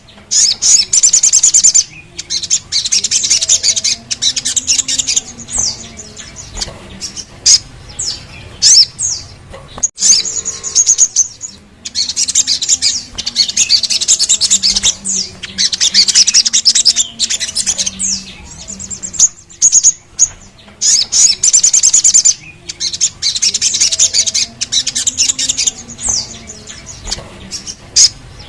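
Little spiderhunter (sogon) song: loud, rapid high trills of about two seconds each, repeated again and again, with short sharp notes in the gaps between them.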